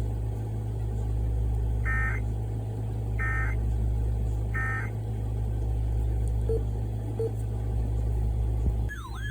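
Emergency Alert System end-of-message data tones: three short bursts of warbling digital squawks about a second and a half apart, closing a flash flood warning, over a steady low hum. Near the end a fast, repeatedly sweeping siren-like tone starts.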